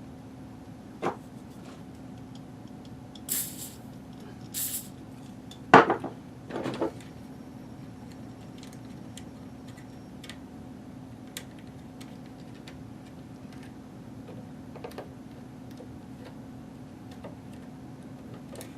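Small parts and tools clicking and clinking while a router is being reassembled by hand: a few scattered clicks and short scrapes, the loudest about six seconds in, then only faint ticks over a steady low hum.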